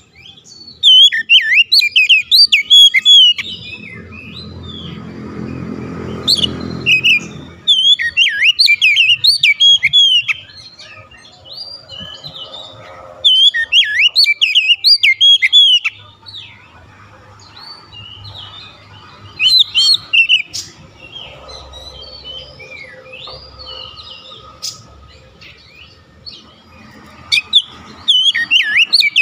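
Oriental magpie-robin singing in loud bursts of fast, varied whistles and chirps a few seconds long, with pauses between, pouring out its repertoire of mimicked phrases as it is worked up by a rival's song. A low rumble sits under the song about four to seven seconds in.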